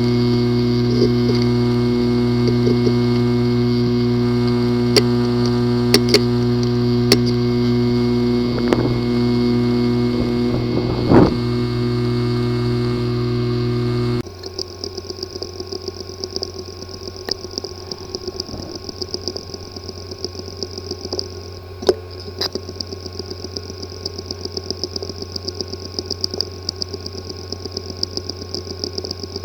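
Hard drive with a physically damaged disk assembly, running. It gives a loud steady buzz with a few sharp clicks, then about 14 seconds in switches abruptly to a quieter whir with rapid ticking. These are the buzzing and clicking typical of a failed head and disk assembly.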